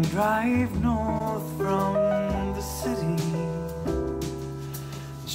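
A song with a singing voice and keyboard, played back through a pair of studio monitors and picked up by a microphone in the room. Playback switches from Kali LP-6 to Adam Audio T5V monitors partway through.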